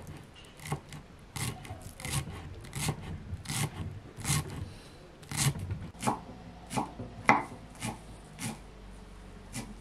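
Large kitchen knife chopping fresh dill on a thick round wooden board cut from a log. Steady, regular strokes, about one and a half a second, each a knock of the blade on the wood with a short scrape.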